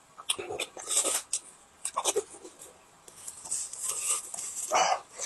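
Close-miked eating sounds from a person chewing a boiled egg with their mouth full: wet chewing and lip smacking with many short sharp clicks, and a louder wet burst near the end.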